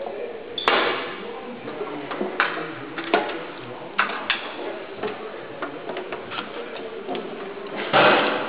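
Sharp clicks and knocks of hand tools and parts being handled in a workshop, coming singly a second or so apart, with a short louder rush of noise near the end.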